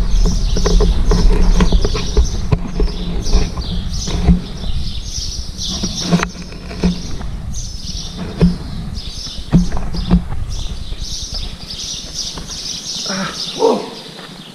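A person breathing hard and panting, out of breath from climbing, with scattered knocks and scrapes of footsteps and hands on rock.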